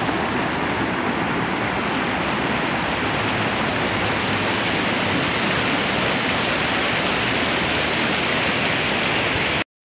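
River water rushing steadily, cutting off abruptly near the end.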